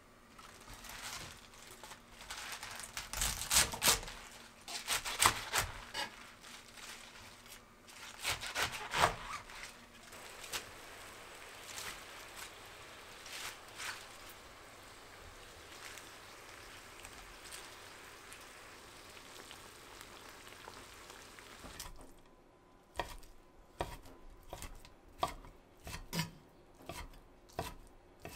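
A kitchen knife cutting through a bunch of leafy greens on a wooden board, with irregular knocks and leaf rustle. The greens then fry in a pan with a soft steady sizzle. Near the end come quick, evenly spaced knife strokes on the wooden board as ham is diced.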